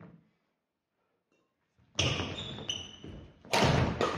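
Badminton doubles rally on a wooden gym floor: after about two seconds of near silence, shoes squeak sharply and feet thud on the boards, mixed with racket strikes on the shuttlecock. The loudest impact comes about three and a half seconds in.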